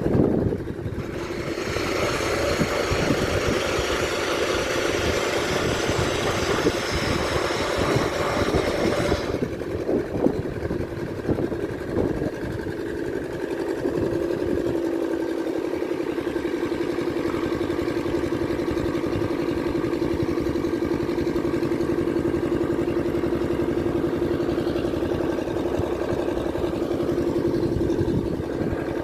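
An engine running. It is fuller and noisier for about the first nine seconds, then settles into a steady, evenly pulsing hum.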